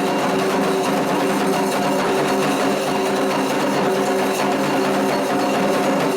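Candomblé ritual music, loud and continuous, made of several steady held tones with no distinct drumbeats standing out.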